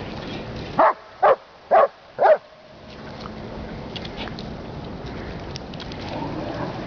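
A dog barking four times in quick succession, about half a second apart.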